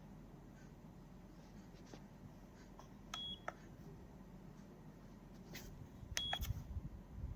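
Two short, high electronic beeps about three seconds apart, each with small clicks like button presses, followed by a few soft low bumps of handling.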